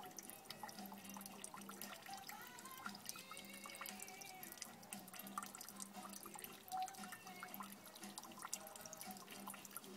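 Water from a water butt's tap dripping and trickling into a metal bowl: a steady, faint patter of many small drips.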